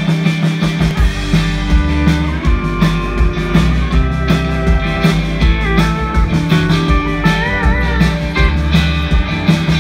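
Live country-rock band playing an instrumental intro: electric guitar, bass, drums and pedal steel guitar. The bass and drums come in fully about a second in, and bending, wavering notes ring out over them in the middle.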